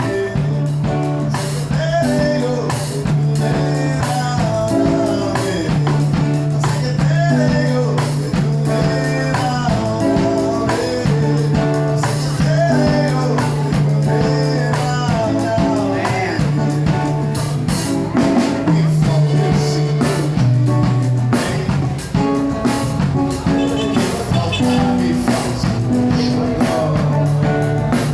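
A song played by a band: a singer's voice over guitar, sustained low bass notes and a drum kit keeping a steady beat.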